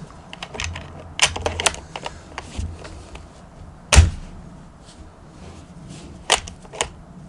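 Metallic clicks and clacks of a Yugoslavian M48 Mauser bolt being worked by hand, with one loud, sharp knock about four seconds in. The bolt is stiff with this Romanian surplus ammunition, which the shooter takes for a bolt or extractor issue.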